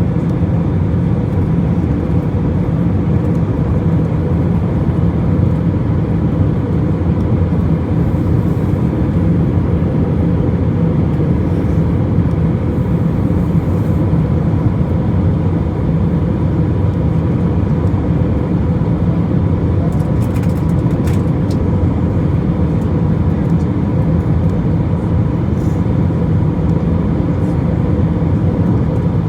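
Steady cabin noise inside an airliner: the jet engines and the rush of air over the fuselage, a constant low rumble with a faint steady hum, and a few light ticks about twenty seconds in.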